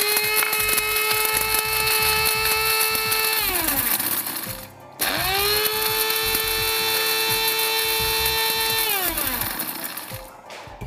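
Electric spice grinder grinding whole spices (cinnamon stick, star anise, fennel, cloves, black peppercorns): the motor runs at a steady whine, winds down about three and a half seconds in, then spins up again for a second run of about four seconds and winds down near the end.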